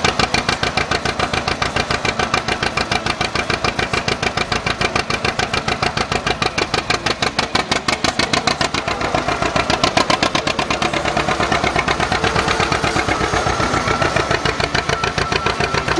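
Antique tractor engine running steadily, its firing pulses coming fast and evenly.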